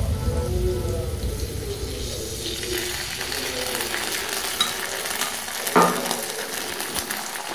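Egg, vegetables and sauce sizzling in oil in a steel wok, a steady frying hiss, with one short knock about six seconds in.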